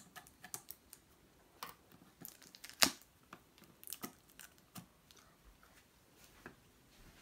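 Scissors snipping through plastic shrink-wrap on a boxed set, and the wrap crackling as it is picked at. The sound comes as scattered small clicks, with one sharp click about three seconds in.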